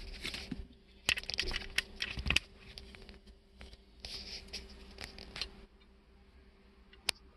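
Rustling and scraping in three short stretches, with many sharp clicks in between, over a faint steady hum.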